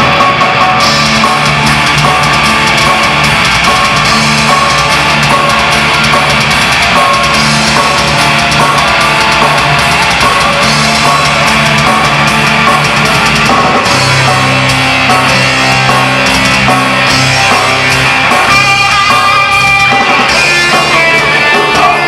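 Heavy metal band playing live: electric guitar, bass guitar, drum kit and keyboards, loud and steady throughout.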